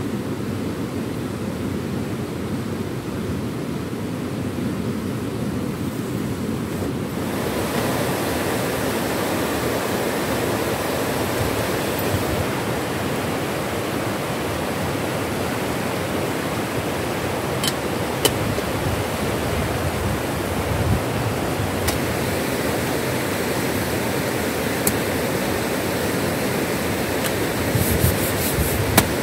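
Whitewater rapids of a rocky river rushing in a steady hiss, duller for the first seven seconds and fuller from about seven seconds in. A few light clicks and clinks from handled metal camp cookware, with a quick run of them near the end.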